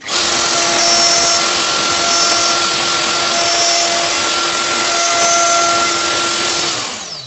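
Electric motor-driven machine running with a loud, steady rushing whir and a steady hum under it; near the end it runs down, its pitch falling as it stops.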